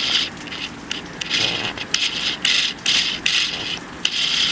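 Hurricane wind and rain outside an open doorway, broken by a series of short rasping hisses about one every half second.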